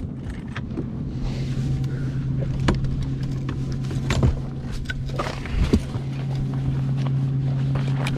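Steady low hum of a bass boat's motor, with several hollow knocks and steps on the deck as a person moves about the boat.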